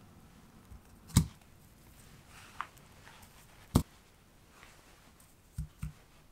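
Peeled bananas being laid into a small nonstick frying pan over butter and coarse sugar: two sharp knocks against the pan, a light click, then two soft thumps near the end.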